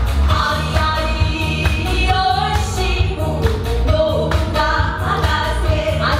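Two women singing a medley of Korean folk songs (minyo) into microphones, over amplified accompaniment with a strong, steady bass beat.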